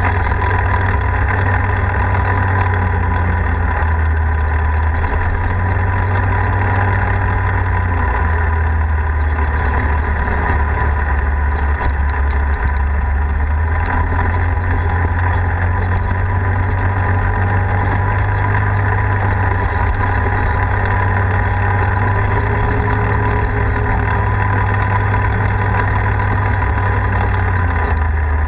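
Engine of a Polaris RZR four-seat side-by-side running at a steady cruising speed while driving. A loud, even low drone that holds its pitch throughout.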